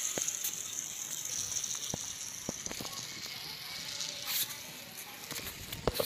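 Small DC gear motors of a homemade toy truck running with a steady high whine, with light plastic clicks and rattles from the truck rolling over concrete. A few sharper clicks near the end.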